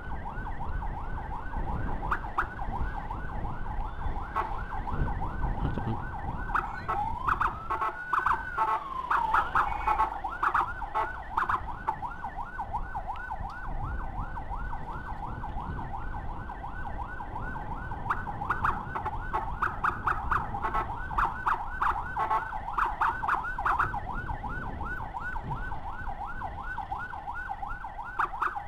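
Electronic emergency siren on an escort motorcycle sounding a fast, rapidly repeating yelp, switching briefly to one slow rising and falling wail about seven seconds in before going back to the fast yelp. A steady low rumble of the motorcycle riding through traffic runs underneath.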